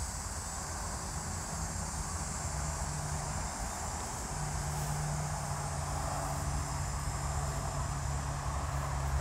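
Outdoor evening ambience: a steady high chirring of insects over a low rumble of distant traffic, with a steady engine hum setting in about four seconds in.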